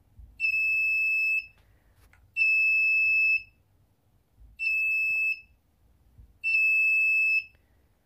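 Piezo buzzer of a homemade infrared proximity alarm beeping: four steady, high-pitched tones of about a second each, spaced about two seconds apart, as the alarm is triggered.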